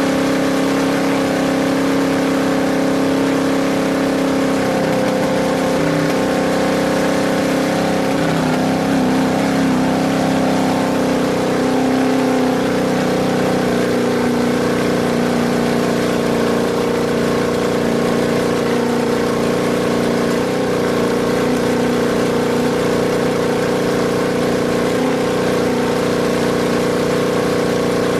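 Engine of an off-road race vehicle running at a steady, loud drone, its pitch shifting slightly about twelve seconds in.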